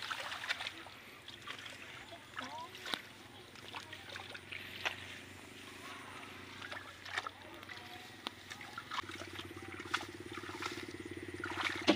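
Small splashes and squelches of hands groping in shallow muddy water. A low, rapidly pulsing buzz starts about nine seconds in.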